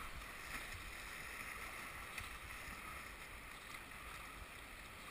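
Faint, steady rush of whitewater rapids around a kayak running a river.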